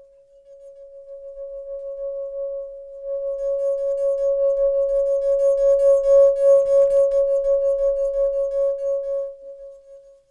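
A single sustained ringing tone, like a struck singing bowl, used as a tension sound effect: it swells steadily to its loudest about halfway through and then fades out near the end, over a faint low rumble.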